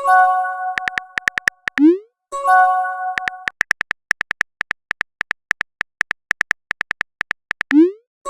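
Text-messaging app sound effects: a bright chime as a message arrives, a quick run of typing clicks, then a short rising pop as a message is sent. A second chime follows, then a longer stretch of rapid typing clicks ending in another pop.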